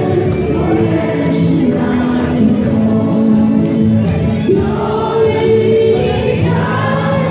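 A large group of amateur singers, men and women together, singing a Taiwanese minge (folk song) in chorus with long held notes.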